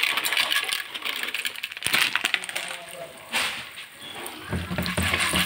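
Dry popcorn kernels poured from a plastic bag into a hot oiled pot, a dense rattling patter of kernels landing on the pan and on each other, dying away after about three and a half seconds.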